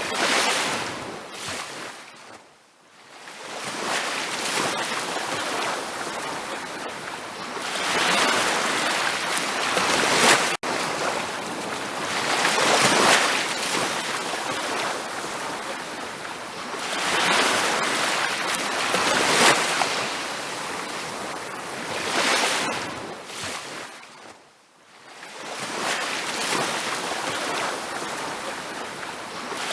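Ocean surf on a beach: waves breaking and washing in as a hiss that swells and ebbs every few seconds, falling almost quiet twice, a few seconds in and near the end.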